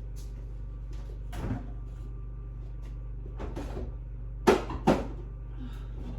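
Kitchen cupboard being opened and shut: a few soft knocks, then two sharp clunks close together about four and a half seconds in, over a steady low hum.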